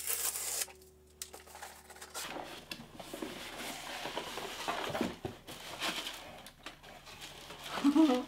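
Cardboard subscription box being opened by hand: a short scraping burst at the start, then from about two seconds in steady rustling of cardboard flaps with small knocks as the inner box comes out of its sleeve and is opened.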